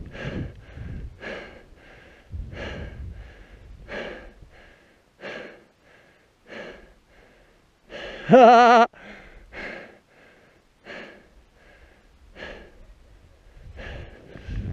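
A skier panting hard, quick regular breaths about every two-thirds of a second, with one short, wavering vocal whoop about eight seconds in.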